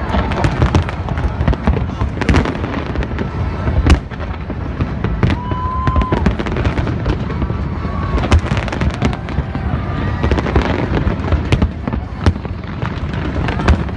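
Aerial fireworks going off in quick succession: a dense run of bangs and crackling, with one sharp, loud bang about four seconds in.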